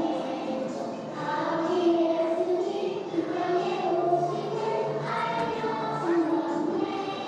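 A group of young children singing a Christmas song together over a musical accompaniment, with notes held and moving every second or so.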